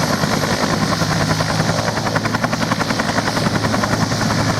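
Helicopter sound effect: rotor blades chopping rapidly and evenly over a steady engine drone, as for a take-off.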